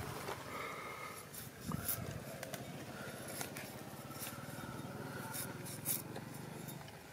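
A small knife scraping and nicking the skin off garlic cloves held in the fingers: soft scrapes and light clicks, a few sharper ones, over a steady low background hum.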